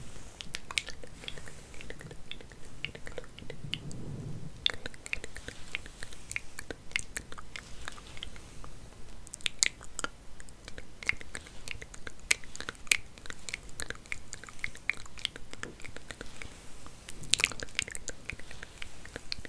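Hair being handled and combed right up against the microphone, making irregular crisp crackles and clicks. The crackling comes in denser, louder flurries about halfway through and again near the end.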